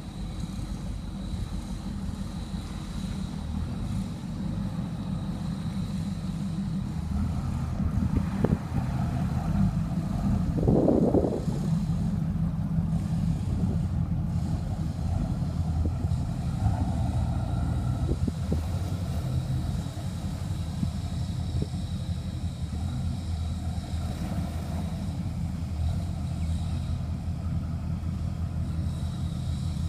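Motor yacht engines running with a steady low drone, with a brief louder sound about eleven seconds in.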